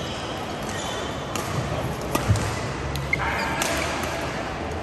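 Badminton play in a large sports hall: a few sharp racket-on-shuttlecock hits, the loudest pair about two seconds in, and short squeaks of shoes on the court mats, over a background of chatter.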